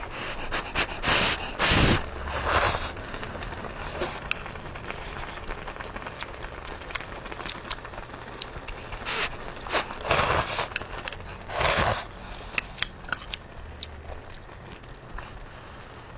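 Close-miked eating of spicy instant noodles: several loud, short slurps of noodles, a cluster about a second in and another pair around ten seconds in. Between the slurps come many small wet clicks and smacks of chewing.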